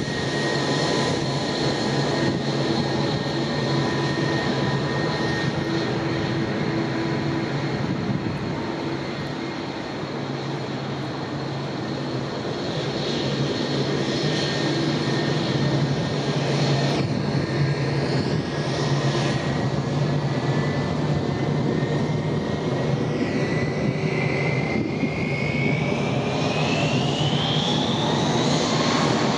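Airbus A320-232's twin IAE V2500 turbofan engines running near idle with a steady whine and hum, then spooling up near the end with a rising whine as thrust builds for take-off.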